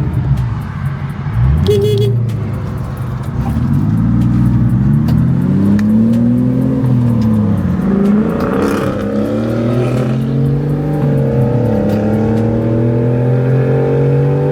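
Car engine accelerating hard through the gears, its pitch rising and then dropping at each shift several times.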